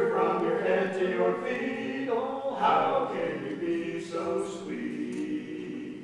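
A cappella vocal quartet singing held chords in close harmony. The chord changes about two seconds in and again about four seconds in.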